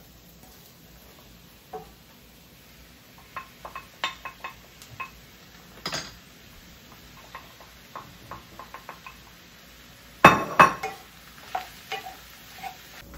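Cooking utensil clinking and scraping against a pan as mushrooms are stirred in butter and garlic: scattered light clinks, with a louder double clatter about ten seconds in.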